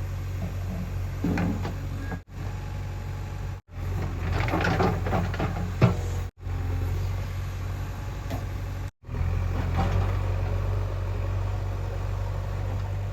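Diesel engine of a JCB 3DX backhoe running steadily, cut by a few brief dropouts. There is a spell of knocking and clattering about four to six seconds in.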